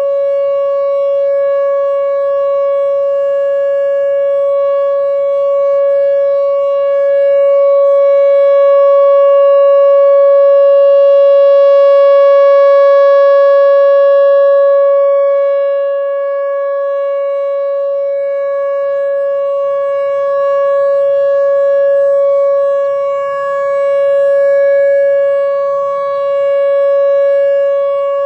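Whelen WPS-4004 electronic outdoor warning siren sounding its Full Alert signal: one unbroken steady tone, its loudness slowly swelling and easing. It is not very loud at all, which the recordist puts down to only two of its speaker drivers being in use.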